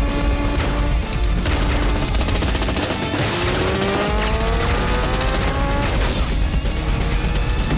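Action-film soundtrack: a motorcycle engine revving and climbing in pitch as it accelerates, mixed with several sharp gunshots from a pistol, with score music underneath.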